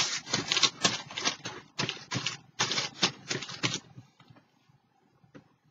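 Fingers being wiped clean of sticky paint: a run of quick rubbing, rustling strokes, several a second, that stops about four seconds in.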